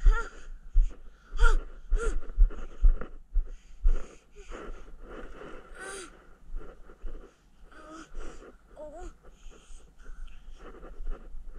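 A child's close breathing and small non-word vocal noises right at the microphone, in short uneven bursts, with a few low thumps in the first three seconds.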